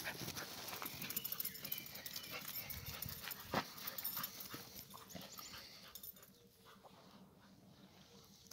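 An American Staffordshire terrier and a border collie puppy playing rough on grass: scuffling, rustling and dog play sounds, with one sharp knock about three and a half seconds in. It quietens after about six seconds.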